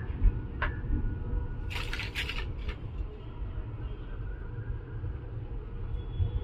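A few light clicks and taps from handling the brake pads and caliper of a motorcycle's front disc brake, with a short cluster about two seconds in, over a low steady rumble.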